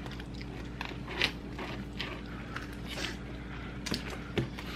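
Close-miked eating sounds: fried chicken being pulled apart and chewed, with a few short crackles and clicks over a faint steady hum.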